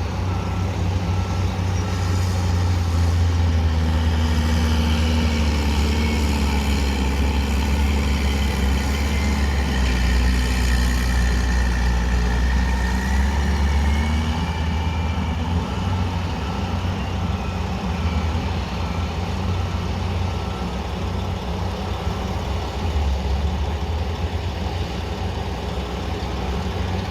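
Diesel engines of heavy earth-moving equipment running under load, swelling and easing in pitch, with a reversing alarm beeping steadily through most of it.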